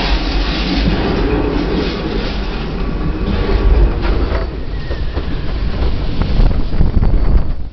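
Log-flume boat rumbling and clattering along the water flume with rushing water, a loud steady noise that drops away suddenly near the end.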